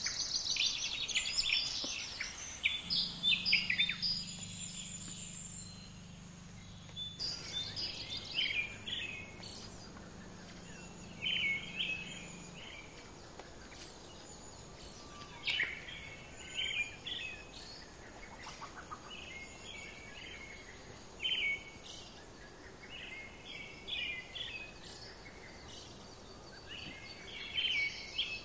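Several birds chirping and calling in short, repeated high phrases, loudest and densest in the first few seconds and then scattered. A low steady hum runs underneath for several seconds in the first half.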